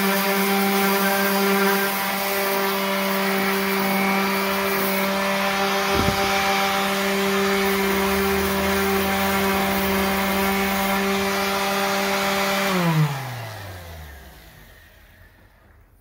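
Corded electric orbital sander running against the steel lawn mower deck, a steady motor hum over a gritty sanding hiss as it strips paint and rust. About 13 seconds in it is switched off and the motor winds down, its pitch falling over about two seconds.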